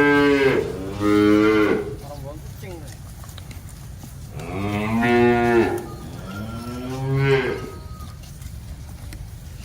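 Cattle mooing: two pairs of long, drawn-out moos, the second pair coming about four seconds after the first.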